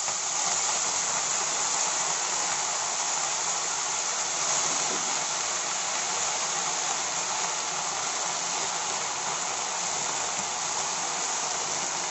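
Fresh washed tandulja (amaranth) greens sizzling in hot oil and fried garlic in a kadhai, a steady hiss that starts suddenly as the leaves go in: the water held in the leaves boiling off in the oil.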